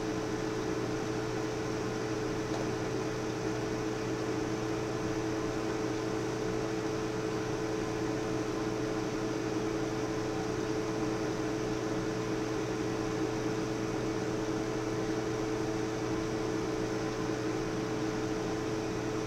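Steady electrical hum from running lab equipment, two held tones over a faint hiss, unchanging throughout.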